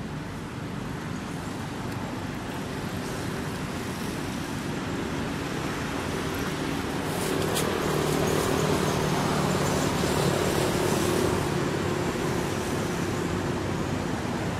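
Road traffic: a steady wash of vehicle noise with an engine's low hum, growing louder about halfway through.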